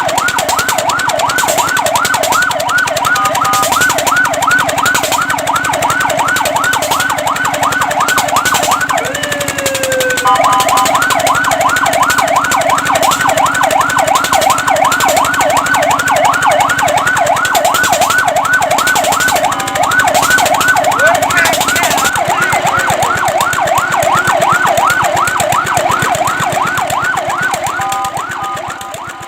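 Fire truck's electronic siren in a fast yelp, sweeping up and down several times a second. About a third of the way in it briefly changes to a slower sweep before the yelp resumes, and it fades out near the end.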